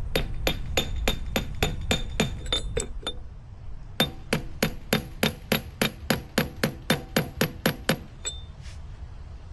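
Hammer tapping a seal installer tool to drive a new hydraulic motor shaft seal into a Denis Cimaf 180D mulcher head. The taps come evenly and quickly, about three or four a second, each with a short metallic ring, in two runs separated by a pause about three seconds in.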